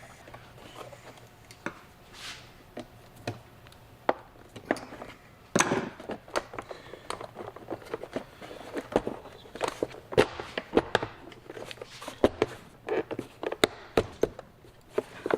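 Handling noise as a plastic jump box case is fitted and clamped back together: irregular clicks, knocks and rattles of plastic parts, busier from about five seconds in.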